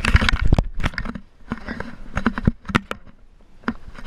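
A hooked crappie splashing at the water's surface as it is reeled up and lifted out, a dense burst in the first half second, followed by scattered sharp clicks and knocks.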